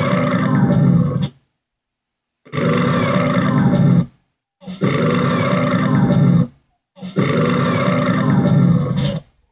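Four long, loud cartoon belches in a row, each about two seconds of low, rough growl, separated by abrupt silences.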